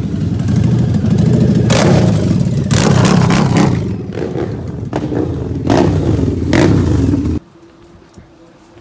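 Motorcycle engine running close by, with several quick throttle blips rising and falling over its steady low note. It cuts off suddenly near the end, leaving a much quieter background.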